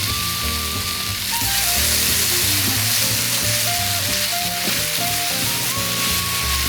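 Food sizzling on a hot pan, a steady frying hiss, with background music playing a simple stepping melody over a bass line.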